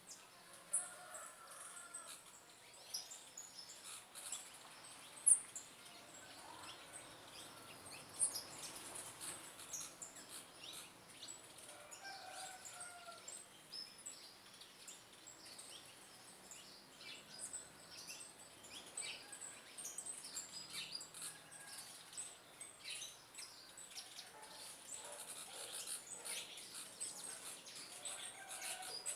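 Birds chirping: many short, high chirps throughout, with a lower call recurring every few seconds.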